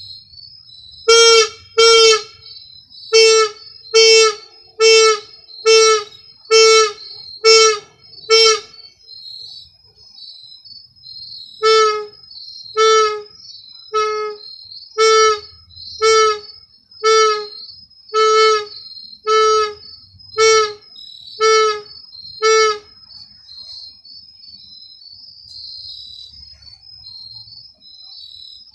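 Air horn sounded in short blasts, about one a second: nine, a pause of about three seconds, then eleven more, spelling out 9/11. Crickets chirp steadily throughout.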